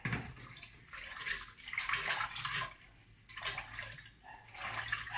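Water splashing in uneven bursts as fresh omavalli and tulsi leaves are washed by hand, with short pauses in between.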